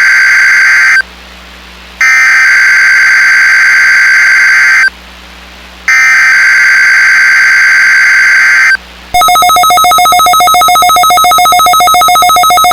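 Emergency Alert System SAME header on NOAA Weather Radio: three bursts of screechy digital data tones, each about three seconds long with about a second's gap between them, coding the Required Weekly Test. About nine seconds in, a loud, rapidly trilling electronic alert tone starts and keeps going.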